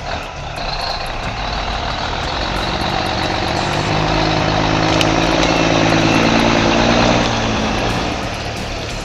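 Heavy logging truck's diesel engine working hard under load on a climb, getting louder for several seconds and easing off about seven seconds in.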